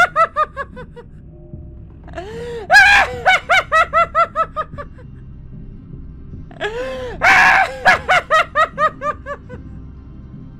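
A character's sinister cackling laugh in three bouts. Each bout opens with a loud drawn-out cry and trails off in a fast run of 'ha' pulses, about six a second, over faint background music.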